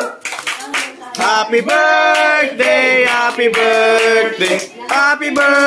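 Voices singing a held, sustained tune with hands clapping along.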